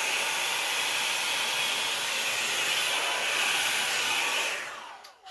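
Revlon blow dryer blowing steadily on high, an even airy hiss. Near the end it winds down and stops as its plug slips out of the loose wall outlet.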